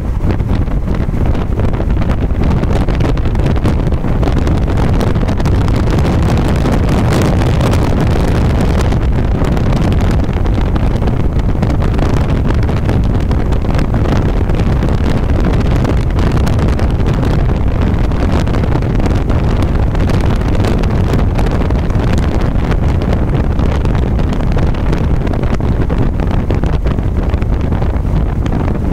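Steady wind rushing over the microphone, with the road and tyre noise of a vehicle driving at highway speed.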